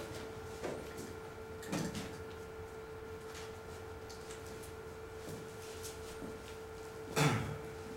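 A steady hum at one pitch, with a few short knocks and scrapes over it; the loudest, a brief scrape that falls in pitch, comes near the end.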